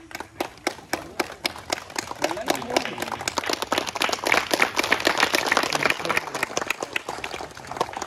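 A crowd clapping fast and unevenly, with voices calling out among the claps. The clapping is loudest about four to six seconds in.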